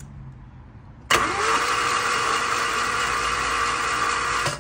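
Starter motor cranking a Nissan Micra K11's four-cylinder CG engine for about three and a half seconds, from about a second in. It starts with a rising whine that settles into a steady spin, then cuts off just before the end. The engine spins freely and never fires after a high-lift cam install; spark has been ruled out, and the owner puts it down to the aggressive cams, perhaps needing the valves adjusted.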